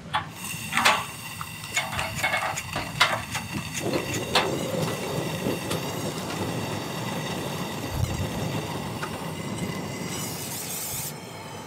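A few sharp clicks as a long gas lighter is worked at the burner of a Kings two-burner gas camp stove. The burner catches about four seconds in and then burns with a steady hiss.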